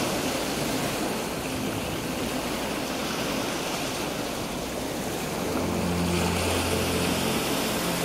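Sea waves washing steadily onto a beach. About five and a half seconds in, a low steady engine hum joins the surf.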